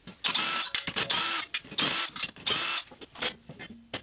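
Steel parts of a homemade forge burner scraping and squeaking as the pipe and bolted top plate are worked off the square mixing box: four harsh scrapes in the first three seconds, then several shorter ones.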